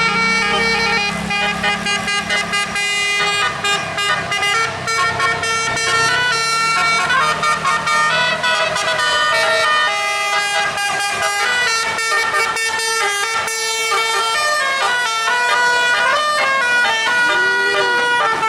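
Multi-tone 'telolet' bus air horn playing a tune: several horn notes at once, stepping from note to note. A low engine rumble runs underneath for the first several seconds, then fades.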